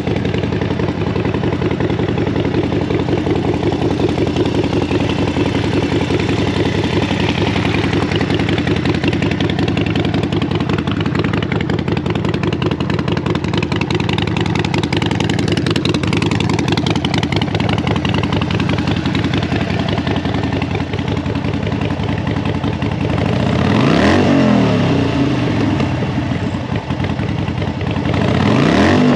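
2015 Harley-Davidson Seventy Two's Evolution V-twin idling steadily through an aftermarket Vance & Hines exhaust. It is revved twice near the end, the pitch rising and falling back each time.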